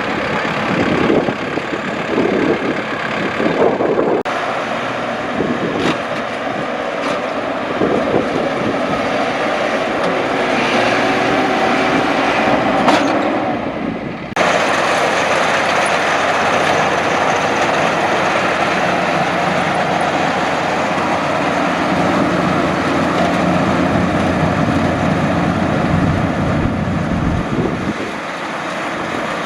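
Luvol RD18 rice combine harvester running while harvesting: a steady engine and machinery sound. It drops briefly and changes abruptly about fourteen seconds in.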